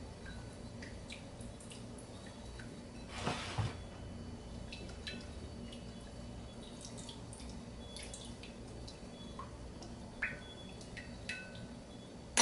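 Chicken wings being mixed in a wet lemon marinade: faint scattered wet clicks and drips, with a couple of louder squelches a few seconds in and a sharp knock at the very end.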